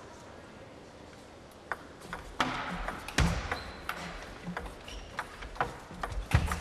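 Table tennis rally: a celluloid ball clicking sharply off the bats and table at irregular intervals of roughly half a second, starting after a quiet second and a half, with a couple of heavier thumps mixed in.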